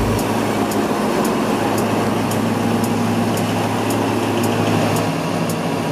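Diesel-electric locomotive running steadily as it rolls slowly across a steel truss bridge, its engine giving a low, even drone.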